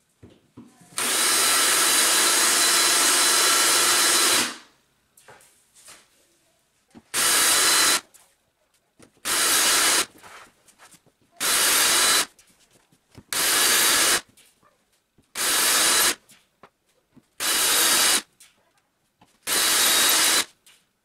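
Cordless drill boring into tile: one run of about three and a half seconds, then seven short trigger pulses roughly two seconds apart.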